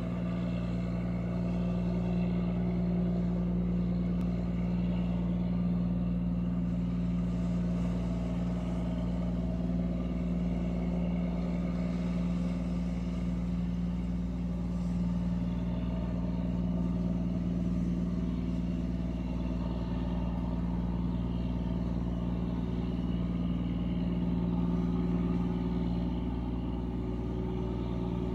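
Squid-fishing boat's diesel engine running at steady cruising speed, a constant drone with a steady hum that does not change.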